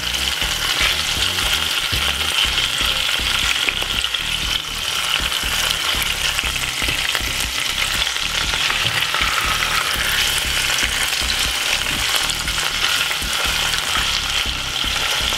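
Salmon fillets frying in oil in a saucepan: a steady sizzle with fine crackling spatter, as a silicone spatula turns the fillets over.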